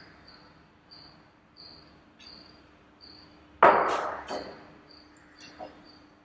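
Crickets chirping in an even rhythm, a little under two chirps a second, over a faint steady hum. A little past the middle comes a sudden loud clatter with a second knock just after, from the glass burette and bottle being handled.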